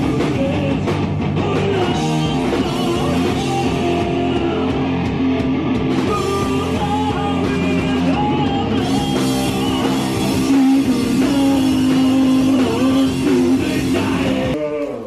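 Rock band playing live: electric guitar, bass guitar and drum kit, with a sung vocal line.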